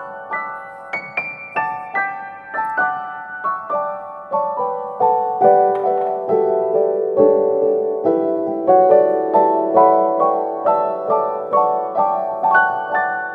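Background piano music: a melody of single struck notes, about two a second, each ringing and fading.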